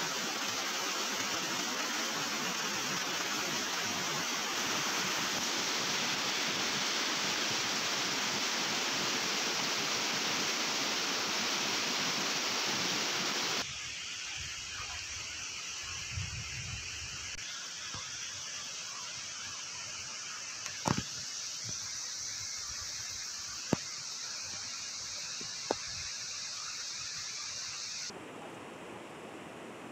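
Steady rush of flowing river water, loud for roughly the first half, then quieter after an abrupt cut, with a few sharp clicks in the later part.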